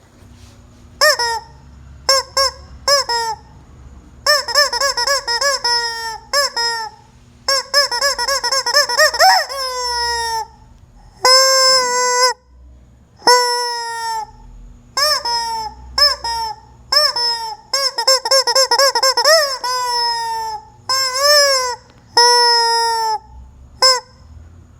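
Squeezed rubber chicken toy squawking again and again: runs of quick honking squeaks broken by several longer drawn-out wails, each with a steady pitch that bends at the start and end.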